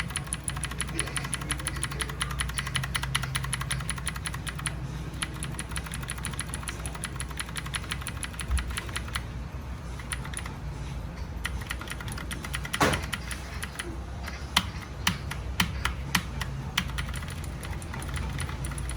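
Computer keyboard being typed on: a fast run of key clicks for about the first half, then slower, separate key presses, over a steady low hum.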